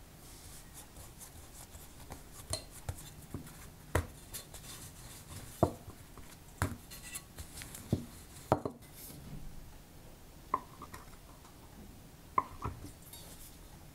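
About a dozen sharp, irregular taps and knocks as a wooden rolling pin and a metal blade strike a countertop while bread dough is rolled flat and cut.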